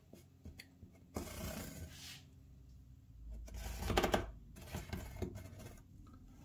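Hands rubbing and scraping as they hold down a model railroad turnout on cork roadbed while a felt-tip marker traces along the track: several short scuffs, the loudest about four seconds in.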